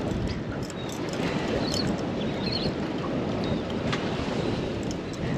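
Steady wind and water noise on an open boat at sea, with a couple of faint clicks.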